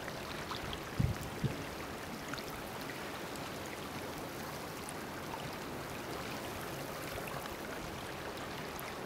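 Gentle seashore water sound at a rock pool: a soft, steady wash with faint scattered drips and trickles. Two short low thumps come about a second in.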